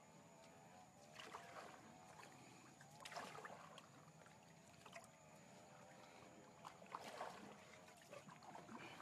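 A wooden paddle dipping and pulling through calm water beside a wooden boat, a faint splash and swish with each of four strokes spaced a couple of seconds apart.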